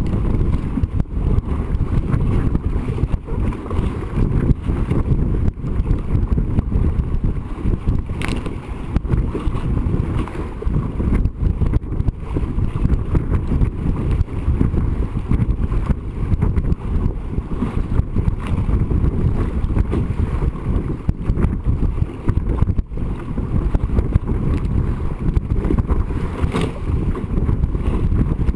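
Sailing dinghy under way at speed: strong wind buffeting the deck-mounted camera's microphone in a steady low rumble, mixed with the rush of water and spray along the hull. Two faint brief ticks come through, one about a third of the way in and one near the end.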